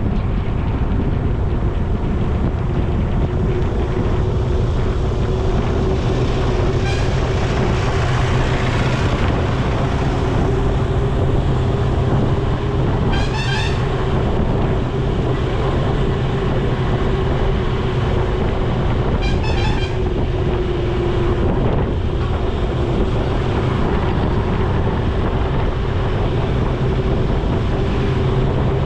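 Steady wind rush and vehicle hum of a road ride. A vehicle horn sounds three times in short pulsed beeps: about a quarter of the way in, near the middle, and about two-thirds of the way through.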